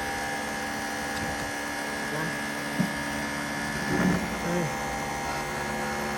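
Pressure washer running steadily: an even motor hum under the hiss of the water spray.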